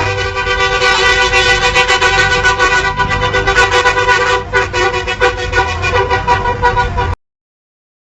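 Indonesian bus telolet horns blaring together in a loud chord of several steady tones, over low engine noise and scattered clicks. The horns cut off suddenly about seven seconds in.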